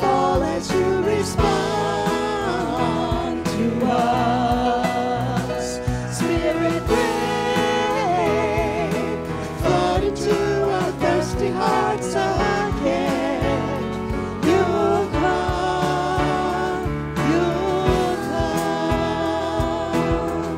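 Worship band playing a song: singers on microphones, with held notes that waver in vibrato, over electric bass and electric guitar.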